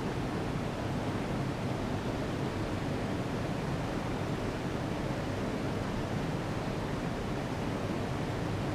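Steady, even rushing hiss of background noise, with no distinct clicks or knocks.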